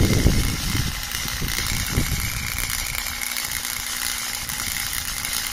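Harbor Freight (Chicago Electric) Flux 125 flux-core wire welder running a bead, the arc crackling steadily with louder pops near the start and about two seconds in. The wire is held at a long stick-out, and the bead is not going down as well as with a short stick-out.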